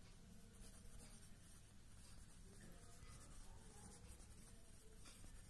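Faint scratching of a pencil writing words by hand on ruled notebook paper.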